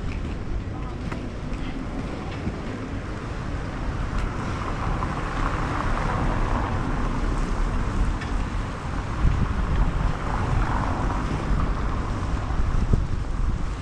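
Inline skate wheels rolling over promenade paving, with wind blowing on the microphone: a steady noise with a few light clicks.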